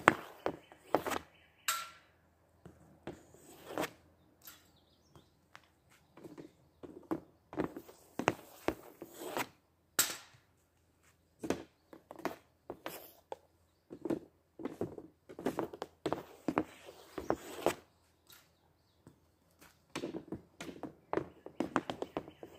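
Hockey stick blade clacking against pucks on a homemade shooting pad, in quick runs of taps with quiet gaps between them and a few louder single cracks of shots.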